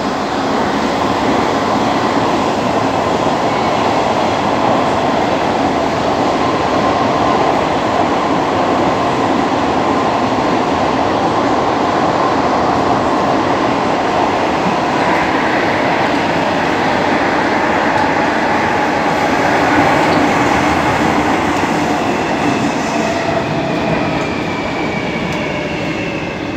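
Athens Metro train running through a tunnel, heard from inside the car: a steady, loud rumble of wheels and running gear with a faint hum. Near the end a thin whine drifts in pitch above it.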